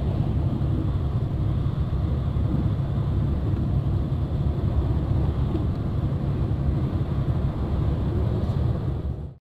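Steady engine and tyre rumble heard from inside a large vehicle cruising on a highway. It cuts off suddenly near the end.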